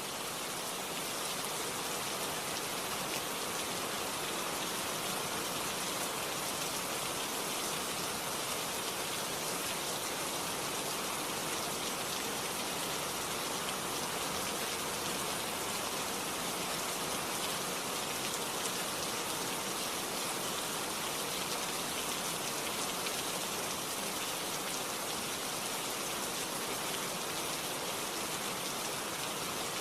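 Steady rain falling, a dense even hiss of raindrops on a surface with no breaks or changes.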